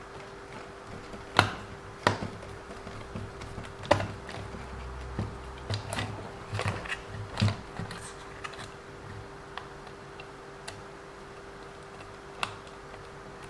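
Irregular clicks and taps of small parts and hand tools being handled while working on an RC car, busiest in the first half and sparser toward the end, over a faint steady hum.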